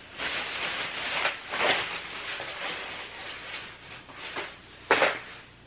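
Rustling and handling noises as things on a worktable are rummaged through and picked up, with a sharper rustle near the end.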